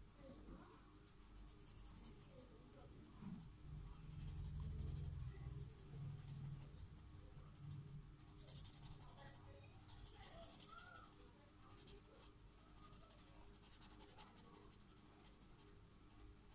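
Faint scratching and rubbing of a felt-tip marker on paper, in bursts of short colouring strokes. A low rumble about four seconds in lasts a couple of seconds.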